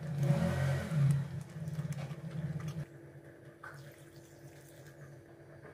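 Water being poured into a pan of thick gravy and broccoli florets.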